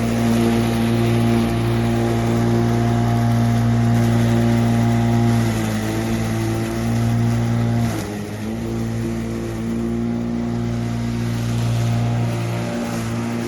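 Sun Joe MJ401E 12-amp electric lawn mower running with a steady motor hum, its pitch sagging briefly twice near the middle as it cuts thick, wet grass.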